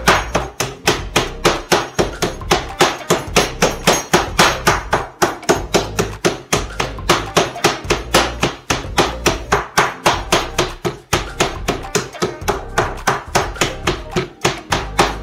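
Stainless-steel meat mallet pounding turkey cutlets flat through plastic wrap on a plastic cutting board, in rapid, even blows about four a second.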